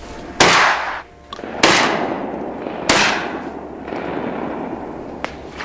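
Three shotgun shots a little over a second apart, each trailing off in a long fading echo, fired at ducks overhead. A light click comes near the end.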